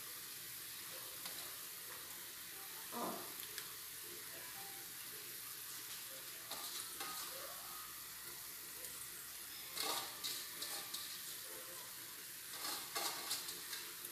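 Chicken pieces sizzling gently in an uncovered aluminium pot, a steady hiss, with a few short clinks and clatters of the pot lid and utensils about three seconds in, about ten seconds in and near the end.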